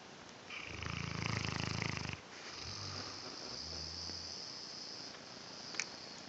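Mastiff snoring in its sleep: a loud snore of under two seconds that cuts off abruptly, then a quieter, longer snoring breath. A brief click near the end.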